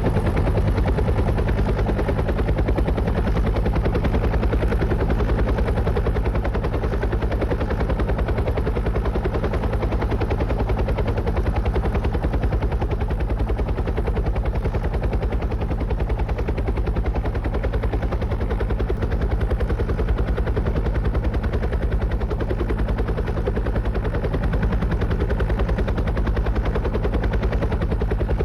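Helicopter rotor blades chopping in a fast, even beat over the low drone of the engine, holding steady throughout.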